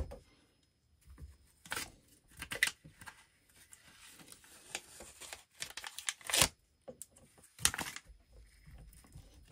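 A handful of short rustles and scrapes as a gloved hand lifts and presses a battery management board's aluminium heat sink against a foam pad on top of the cells.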